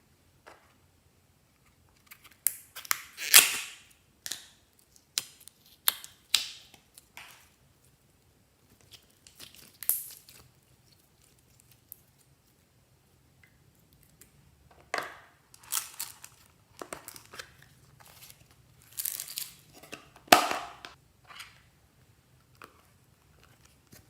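Clear slime being squeezed and pressed by hand, giving irregular sharp pops and crackles with short quiet gaps between them.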